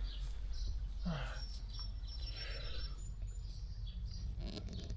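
Outdoor morning ambience: a bird chirping faintly over a steady low background rumble, with a few soft movement sounds.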